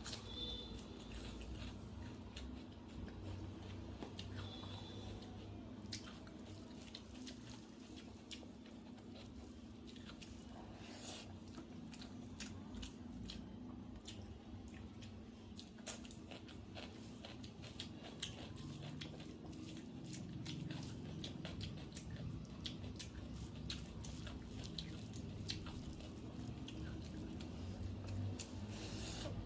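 Close-miked eating sounds from a meal of rice and soya kofta curry: chewing, wet squishing and smacking, with many small clicks and crunches scattered throughout.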